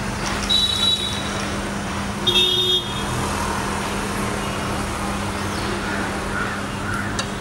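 Street traffic noise over a steady low hum, with two short vehicle horn toots, about half a second in and again about two and a half seconds in.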